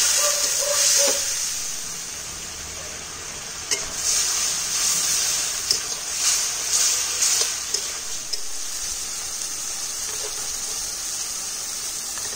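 Onion, tomato and spice masala sizzling in a hot kadai as it is cooked down with a little water, with a spatula stirring and scraping against the pan in a burst of clicks between about four and seven and a half seconds in.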